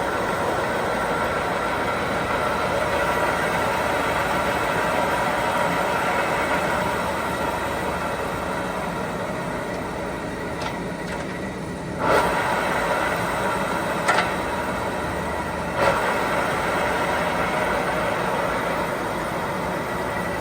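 Large engine lathe running under power, a steady gearhead whine over the mechanical noise. Three sharp clunks come in the second half, the running sound changing after them.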